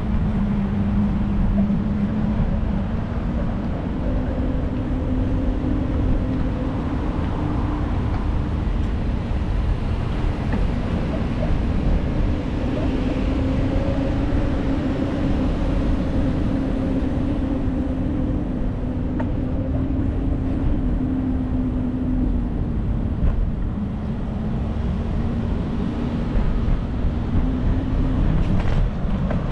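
Wind and ride noise on the microphone of a camera carried on a moving bicycle: a steady low rumble with a wavering low hum running through it.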